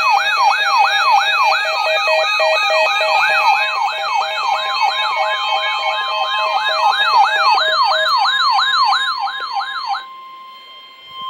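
Electronic yelp-style siren: a fast rising wail that repeats about two and a half times a second, with other tones layered over it. It cuts off about ten seconds in, leaving a quieter single steady tone.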